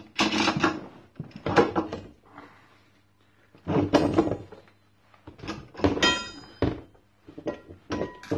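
Steel bar clamp and crowbar knocking and clanking against the CNC machine's metal frame as they are set up to lever it up: a string of separate knocks, a few of them ringing briefly like struck metal, about six seconds in and near the end.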